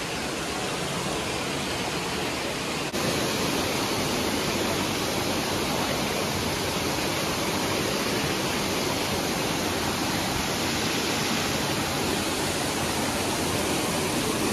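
Steady rush of a waterfall, spring water pouring over rock into a pool. There is an abrupt cut about three seconds in, after which the rush is a little louder.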